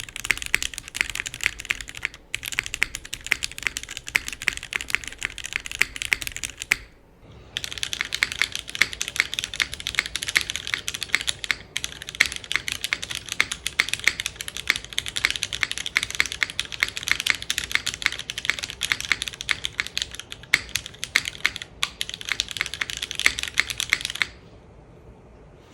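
Continuous typing on a JJW Cloudline mechanical keyboard with lubed vintage Cherry MX Black linear switches, GMK keycaps on an aluminium plate, O-ring mounted: a dense run of keystroke clacks. There is a brief break about seven seconds in, and the typing stops a second or two before the end.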